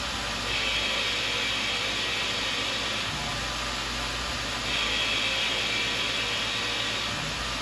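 Tormach CNC mill's spindle running, turning stock against a fixed tool, with a steady machine hum. A higher hiss of the cut comes in and drops out twice, in spells of about two and a half seconds.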